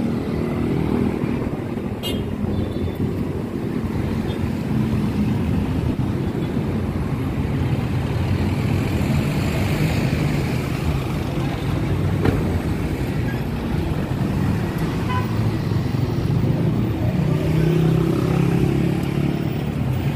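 Busy street traffic: motorcycles and cars running past at close range with a continuous engine rumble, and a louder engine passing close near the end.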